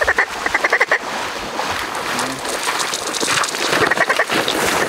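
Quick runs of mallard-style quacks, a rapid series of short notes right at the start and again near the end, over a steady hiss.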